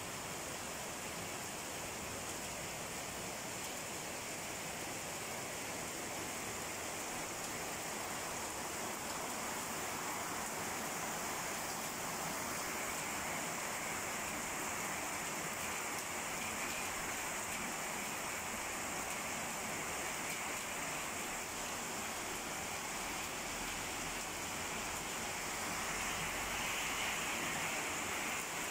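Heavy rain falling steadily on streets and rooftops, growing a little louder near the end.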